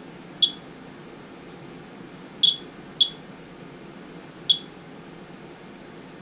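Monitor 4 Geiger counter chirping on single detected counts: four short, high beeps at irregular intervals, two of them about half a second apart. The rate is about 40 counts a minute, a little over twice the background, as the rain sample being measured is mildly radioactive.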